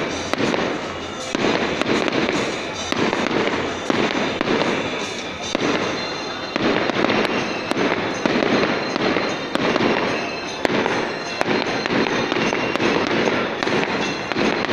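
Aerial fireworks bursting overhead: a continuous, irregular series of sharp bangs and cracks.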